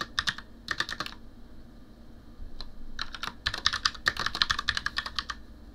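Typing on a computer keyboard: two short bursts of keystrokes, a single key press, then a longer quick run of keystrokes about three seconds in.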